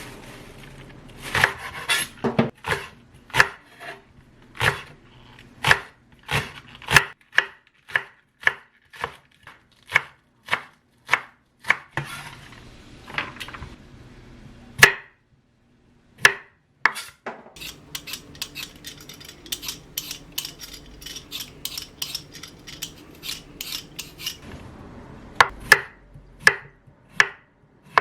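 Kitchen knife chopping food on a cutting board in steady strokes about two a second. It pauses briefly about halfway through, then goes into a fast run of quick chops before slowing again near the end.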